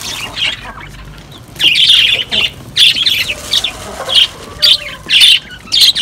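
Farmyard birds squawking and chirping in a rapid string of short, loud calls, starting about one and a half seconds in.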